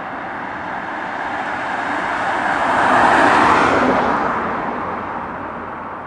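Aston Martin DBS with its 6.0-litre V12 passing by at speed, the sound swelling to a peak about three seconds in and then fading away.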